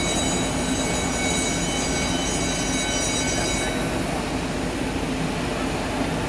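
Steady high-pitched turbine whine over a broad rumble from a McDonnell Douglas MD-80 airliner at the gate. The high whining tones drop out about three and a half seconds in, leaving the rumble.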